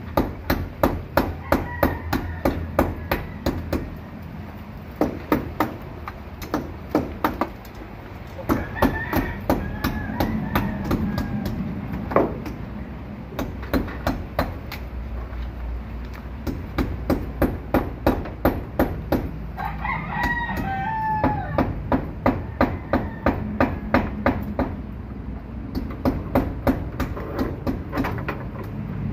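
A rooster crowing about three times, over runs of sharp, evenly spaced knocks at about three a second with short pauses between runs.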